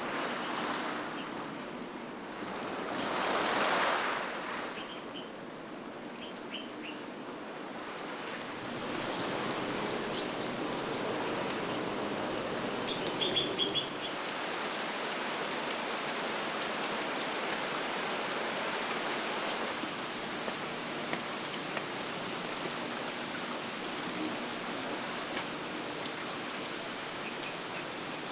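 Steady rain falling, with a few short bird chirps now and then.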